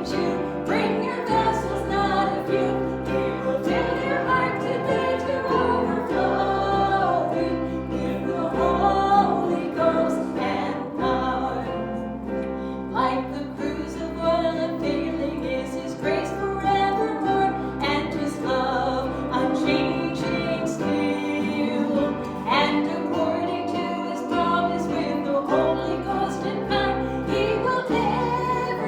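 A church congregation singing a hymn together with instrumental accompaniment, held bass notes underneath.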